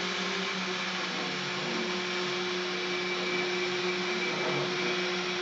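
Desktop CNC milling machine running, its Kress router spindle and stepper motors driving the table along the ball screw, giving a steady motor whine over even mechanical noise.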